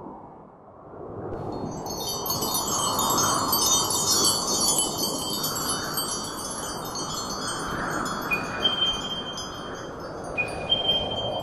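Shimmering wind chimes come in about a second in over a steady windy rush. In the second half, held high chime tones alternate between two pitches.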